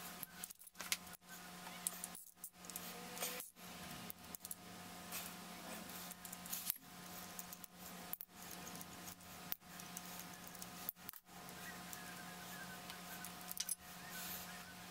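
Metallic clinks and rattling of a steel timing chain and cam sprocket being worked loose and pulled off the front of an LS V8: irregular small knocks and jingles scattered throughout.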